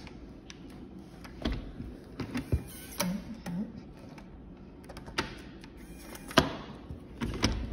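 A handful of sharp knocks and clicks at irregular intervals over a low room hum: an apartment room door being opened and handled.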